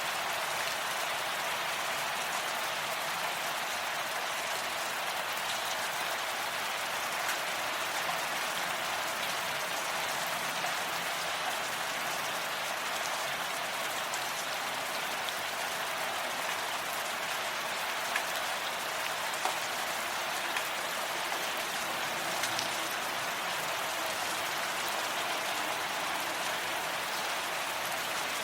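Steady rain falling, an even hiss of drops, with a few louder single drop hits in the second half.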